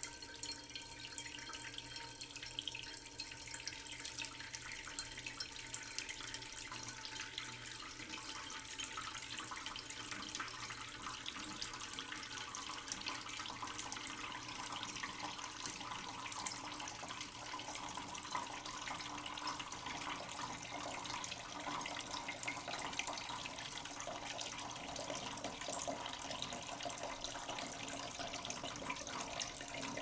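Tap water running slowly into a cooking pot in a sink: a steady splashing stream.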